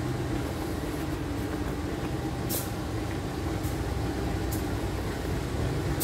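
Diesel-electric locomotive idling at the platform: a steady rumble with a low hum. A few faint short ticks come in the middle.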